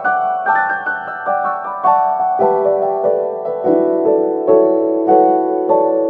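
Background piano music: a slow melody of struck notes, a few of them held.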